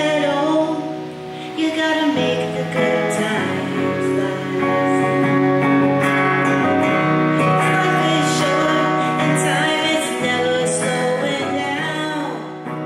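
A song sung to an acoustic guitar: a singing voice over plucked and strummed guitar chords.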